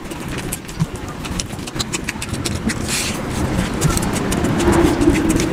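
Wet squelching of a hand mixing rice into mutton curry on a steel platter, with quick wet clicks and smacks of eating, sped up to double speed. A short low hum comes in near the end.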